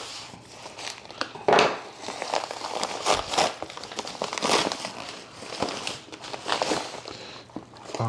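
A yellow padded mailer crinkling and rustling as it is cut and pulled open by hand, in irregular crackles with a louder one about a second and a half in.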